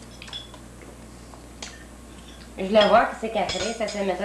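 A spoon clinking lightly against a plate a few times, then a voice rising high and carrying on from about two and a half seconds in.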